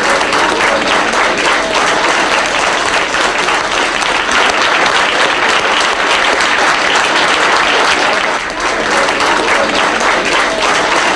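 A crowd applauding steadily, a dense clapping with no break.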